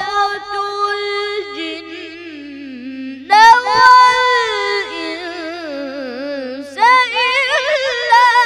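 A boy's high voice reciting the Quran in melodic tajweed style, holding long ornamented notes. The first phrase slides slowly down in pitch and fades. New phrases begin about three seconds in and again near the end, with a wavering, embellished line.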